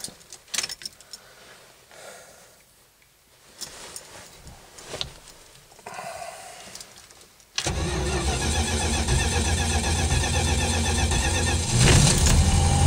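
Plymouth Valiant's carbureted engine cold-starting near freezing, after its throttle is pumped to prime it: a few light clicks at first, then about seven and a half seconds in the engine suddenly cranks and comes to life, getting louder a second before the end as it catches and runs.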